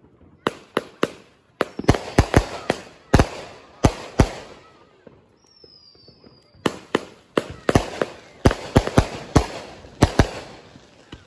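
Consumer aerial fireworks going off: a rapid string of sharp bangs and pops, a pause in the middle with a short high whistle that falls slightly, then a second volley of bangs.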